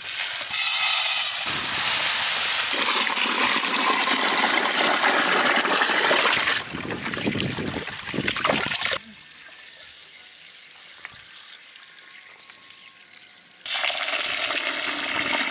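A stream of water pouring into a large aluminium bowl to wash basmati rice, followed by quieter sloshing as a hand swishes the rice in the water. A second pour starts near the end.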